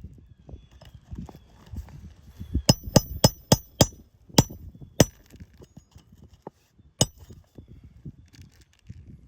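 A run of sharp metallic clinks, about six in quick succession and then one more a couple of seconds later, from metal hand tools working asphalt shingles, over low rustling and bumping of handling on the roof.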